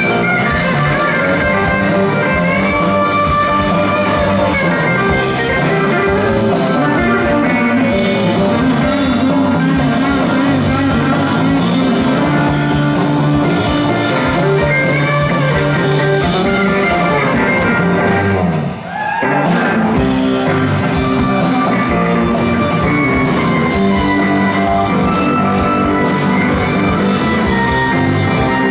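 Live rock band playing a blues-rock song on electric guitars, bass guitar, drum kit and keyboard. The music thins out briefly about two-thirds of the way through, then comes back in with a rising note.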